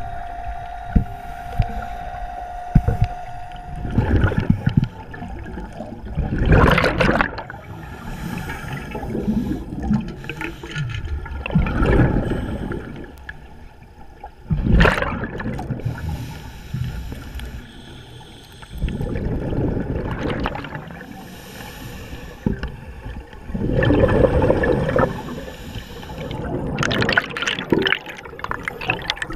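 Scuba diver's open-circuit regulator breathing underwater, exhaled bubbles gurgling in bursts every few seconds. A steady whine is heard at first and stops about four seconds in.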